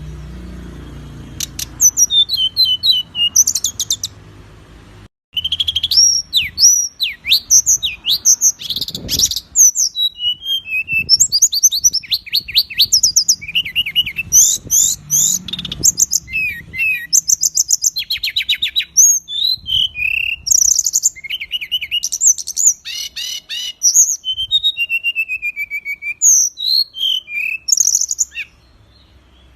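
Small songbird singing a rapid, harsh run of chirps, trills, fast repeated notes and whistled glides, packed densely together. It is a 'masteran' tutor song of the kind played to train caged songbirds. A brief gap comes about five seconds in, and then the song runs on.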